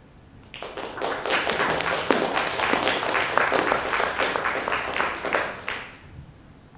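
Audience applauding, many hands clapping together. It starts about half a second in and dies away a little before the end.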